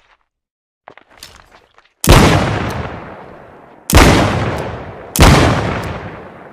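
Smith & Wesson Model 13 revolver fired three times, the first shot about two seconds in and the next two following quickly, each shot sharp and trailing off in a long echo. A few faint clicks come before the first shot.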